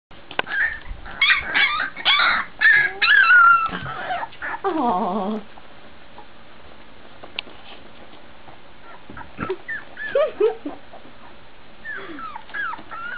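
Young Labrador retriever puppies whimpering and yipping: a dense run of short, high-pitched cries for the first few seconds, a lull, then more whimpers starting again.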